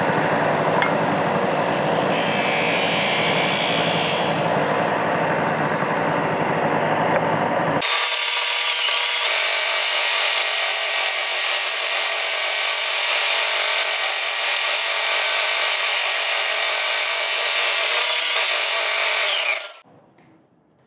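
Allwin combination belt-and-disc sander running while a small wooden block is sanded against it, a steady rasping hiss over the motor. About eight seconds in the low hum drops out abruptly while the sanding goes on, and the sound cuts off suddenly near the end.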